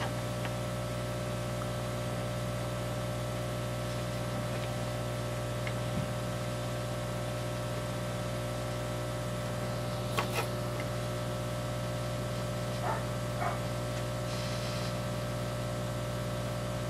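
Steady electrical hum and hiss from the soldering bench equipment, with a few faint light clicks of a tool on the board about ten seconds in and again around thirteen seconds.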